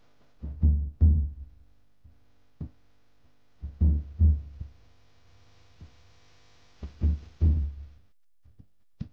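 Background music with a slow drum-machine beat: pairs of deep, heavy hits about every three seconds, with lighter ticks in between.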